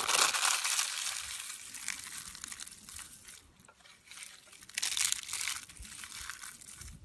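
Brittle rolled soap curls and soap strips crushed and crumbled by hand, crunching and crackling. It starts suddenly and is loudest at first, fades, then swells again about five seconds in.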